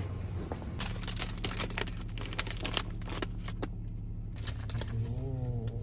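Paper bag crinkling in a string of quick crackles, over a steady low hum from the car's idling engine. A short murmur of a voice comes near the end.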